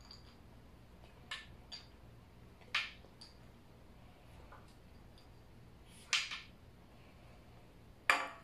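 Almonds dropped one at a time into a blender jar: a few short, sharp clicks a second or two apart, the loudest about three, six and eight seconds in.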